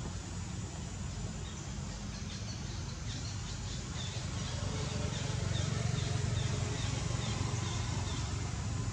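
Outdoor ambience: a steady low rumble, with a small bird chirping in a high, even series about two or three times a second, starting a couple of seconds in.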